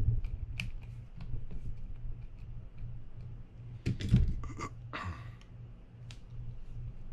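Small metal clicks of a screwdriver tip working the screw on the corroded, stuck lever of a Shimano Baitrunner 12000D reel. About four seconds in comes a louder clatter and rustle as one screwdriver is put down and another is picked up, over a low steady hum.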